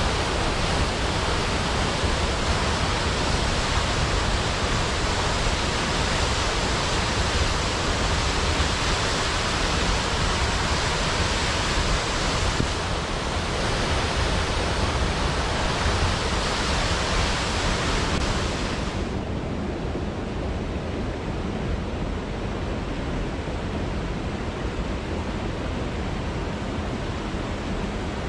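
Waterfall rushing steadily, a dense unbroken hiss of falling water. About two-thirds of the way through it turns abruptly duller and a little quieter as the high end drops away.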